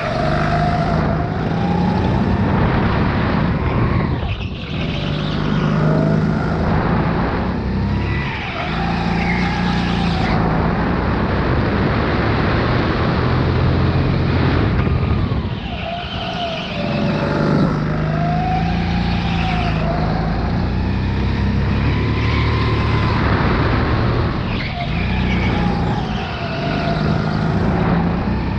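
Sodi RX8 go-kart engine at full racing pace, heard from the driver's seat: it revs up along each straight and drops briefly as the kart brakes for a corner, about four times.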